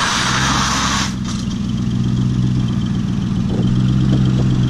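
A car pulling up close, with a loud tyre and road hiss that stops about a second in. Its engine then idles steadily.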